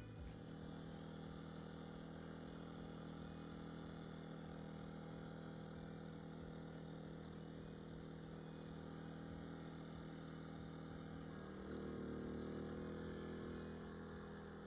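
Small portable generator engine running steadily with an even hum, swelling slightly in level and pitch for a couple of seconds near the end.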